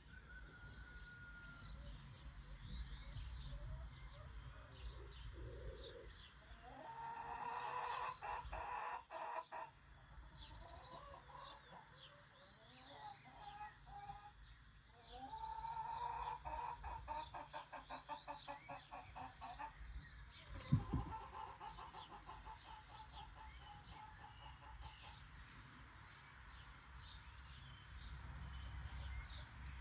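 A rooster crowing twice, in two long calls, with chicken clucking and small birds chirping throughout over a low rumble. A single sharp knock comes about 21 seconds in.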